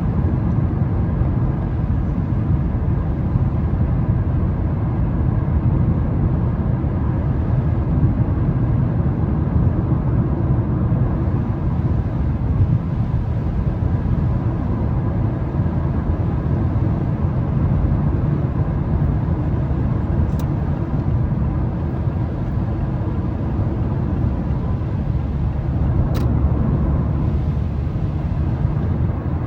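Steady low road and engine rumble of a Mazda 3 cruising on a wet highway, heard from inside the cabin. Two faint clicks come through, about two-thirds of the way in and again near the end.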